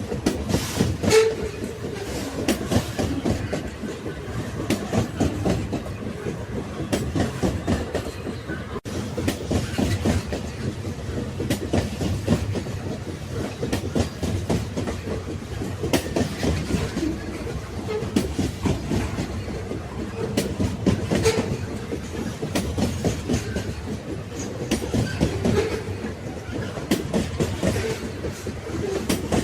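Railway wagons rolling along the track: a steady low rumble with irregular clicks and knocks of the wheels over the rail joints.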